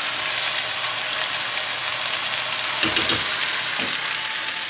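Fresh spinach sizzling in a hot skillet as it wilts and cooks down, a steady hiss, with a brief clatter about three seconds in.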